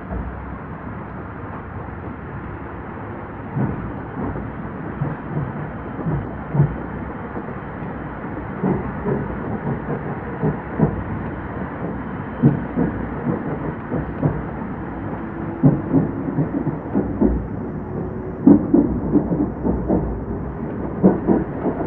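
Running noise inside an old-type passenger coach hauled by an EF70 electric locomotive: a steady rumble with the wheels knocking over rail joints, growing louder, with the knocks coming more often as it goes. A faint rising whine comes in during the second half.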